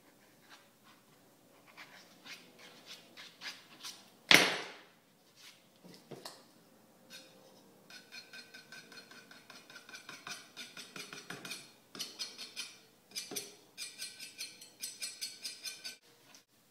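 A small hand tool scratching and scraping details into a spray-painted panel: light scattered scratches at first, then fast squeaky scraping strokes, several a second, over the second half. About four seconds in there is a single loud, short burst of noise.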